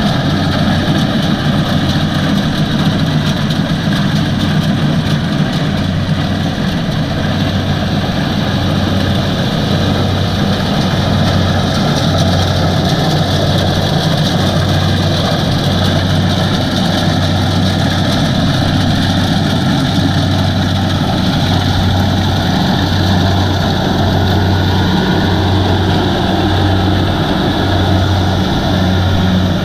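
Kubota DC-70 combine harvester's diesel engine running steadily. It makes a constant low hum that pulses slowly and evenly, about once a second, under a wide machine rumble.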